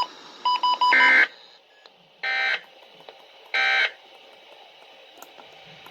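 Three short, buzzy data bursts about 1.3 s apart, after a few brief beeps: the SAME end-of-message code closing an Environment Canada weather radio alert.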